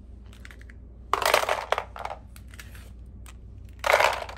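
Small hard plastic toy figures clattering against a plastic toy truck as a hand handles them. There are two bursts of rattling, one about a second in and another near the end, with a few light clicks between.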